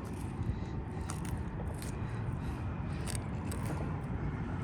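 Sharp knife scraping and slicing along a mangrove snapper while filleting it, a few short irregular strokes, over a steady low rumble.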